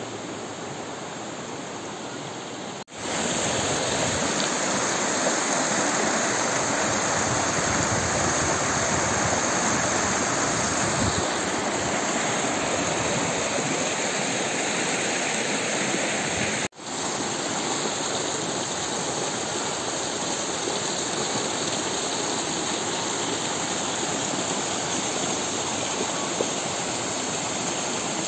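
Mountain stream rushing over stones in shallow rapids: a steady wash of water noise. It drops out briefly twice, at edits, and is louder after the first, about three seconds in.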